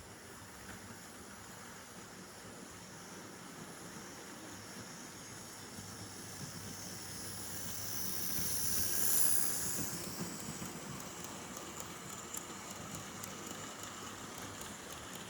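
A steady hiss with a low rumble, swelling to its loudest about nine seconds in and then easing off.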